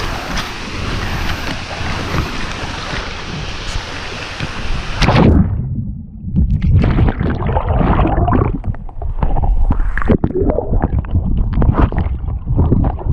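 Steady rush of a waterfall, then about five seconds in it gives way to muffled, irregular splashing and gurgling of water as a person gets in for a dip.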